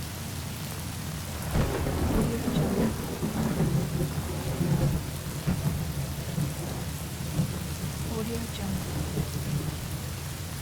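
Thunderstorm: steady rain falling, with a rolling rumble of thunder that builds about a second and a half in and rumbles on for several seconds before dying down.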